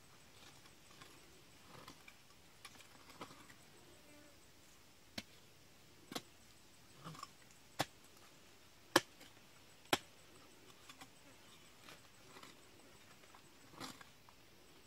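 A hand digging tool chopping and scraping into hard, dry earth while a crab burrow is dug out: a run of sharp knocks about a second apart in the middle, with softer scrapes around them.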